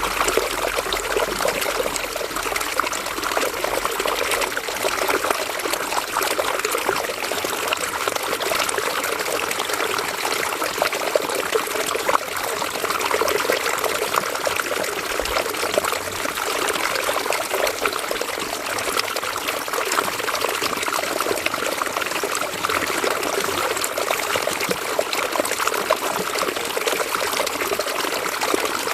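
River water running and trickling over stones, a steady babble with fine splashing.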